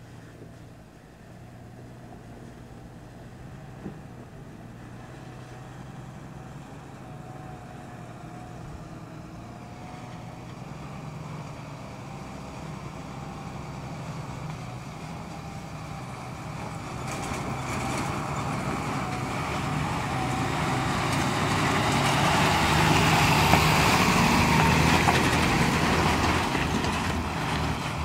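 Loaded Mahindra LPK 3118 tipper truck's diesel engine approaching, growing steadily louder, passing close by about four-fifths of the way through with tyre noise on the gravel track, then starting to fade.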